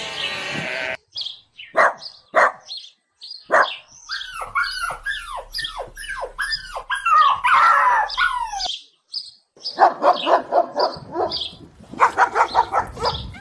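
Dogs barking in a string of short, separate calls, with a quick run of barks near the end.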